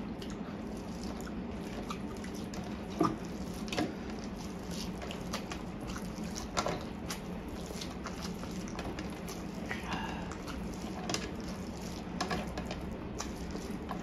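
Wet eating sounds from a man eating saucy spicy Korean fire noodles by hand: scattered squelches, chewing and lip smacks, a few louder than the rest, over a steady low hum.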